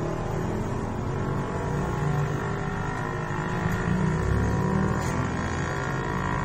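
A motor vehicle engine running steadily nearby, with a short click about five seconds in.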